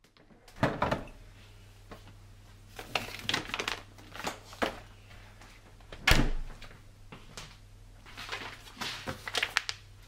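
Household handling noise in a small room: scattered light knocks and clicks of doors and cupboards, with one louder thump about six seconds in, over a faint low steady hum.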